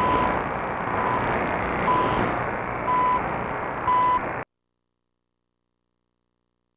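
CHU shortwave time-signal broadcast heard through radio static hiss. A longer beep marks the start of the minute, then a short beep comes once each second, four times. The sound cuts off suddenly about four and a half seconds in, leaving silence.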